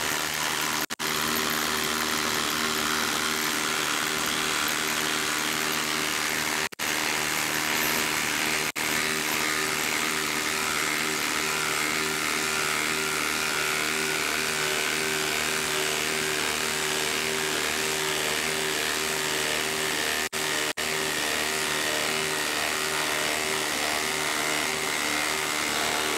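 Milwaukee M18 Fuel quarter-inch hex impact driver (2853-20), fitted with a half-inch anvil, hammering continuously as it drives a large lag screw into solid wood under heavy load. The hammering breaks off briefly a few times, around 7, 9 and 21 seconds in.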